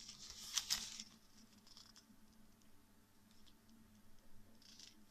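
Leather-look screwdriver bit wallet being handled and folded open, with metal bits clicking in their clips: a burst of rustling and sharp clicks in the first second, then a few faint clicks and a short rustle near the end.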